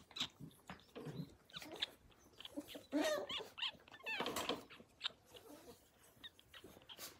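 Australian Cattle Dog puppy making short high-pitched play whines and yelps that bend up and down in pitch while it mouths a hand, with a cluster of them midway. Short rustles and knocks from handling come in between.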